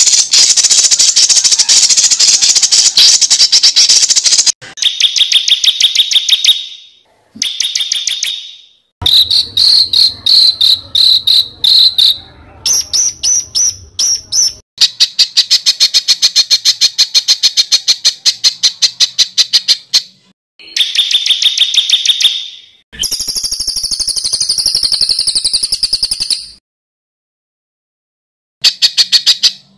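Recorded songbird song: a string of separate passages of very fast, high repeated notes, each cut off abruptly after one to five seconds, with short gaps between and a pause of about two seconds near the end. The passages are edited together as 'masteran', song played to caged competition birds so they copy it.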